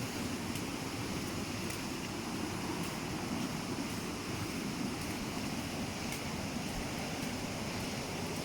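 Steady rush of a waterfall or fast stream, an even noise with no change.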